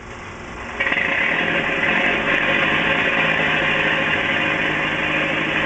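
Old open touring car's engine running loudly and steadily, starting about a second in, with a sharp crack at the end as the car breaks down, which the driver blames on its old carburetor.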